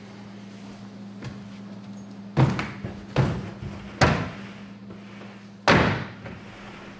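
Thumps of wooden OSB table boards being shoved and knocked into place to enlarge a worktable: three in quick succession a couple of seconds in, and a fourth about two seconds later.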